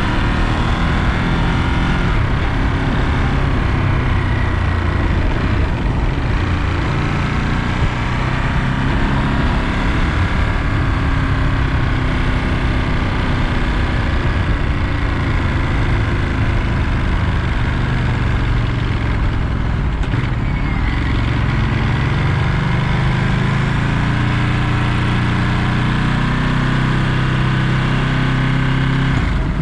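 Ducati Monster 937's Testastretta V-twin engine running on the move, its pitch rising and falling as the revs change.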